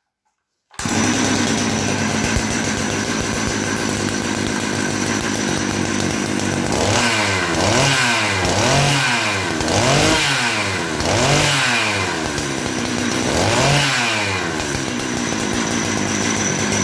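Husqvarna 371 chainsaw's two-stroke engine running with the bar and chain off: it comes in less than a second in and idles, then from about seven seconds in it is revved up and back down repeatedly in quick blips. This is a test run after its oil pump was repaired, to check the oil flow.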